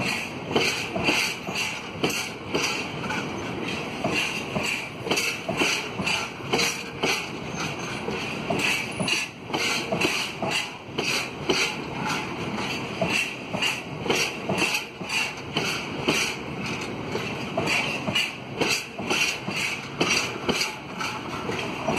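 Wheels of empty bitumen tank wagons clicking over rail joints as the train rolls slowly past, in a steady rhythm of about two clicks a second.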